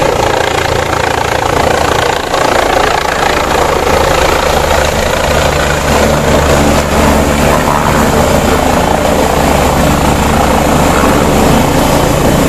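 Police helicopter hovering low and descending to land, its rotor and engine making a loud, steady noise.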